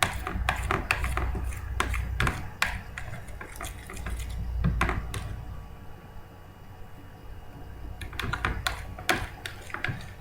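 A spoon clicking and scraping against a plate in irregular knocks as it stirs a slime mixture of glue and laundry detergent.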